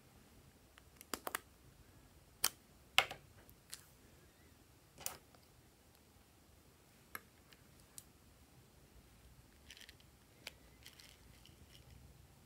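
Small scissors snipping slices off a lipstick: about a dozen sharp, separate clicks of the blades, irregularly spaced, with a soft rustle near the end.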